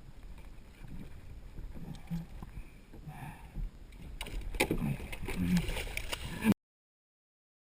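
Water splashing and knocking against a kayak over a steady low rumble, with a few short grunts. The splashing and knocking get louder and busier about four seconds in, then the sound cuts off abruptly.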